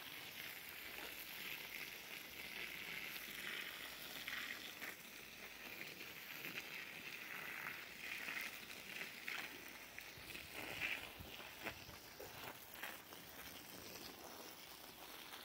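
Garden hose running, its stream of water splashing steadily onto soil, with a few small knocks.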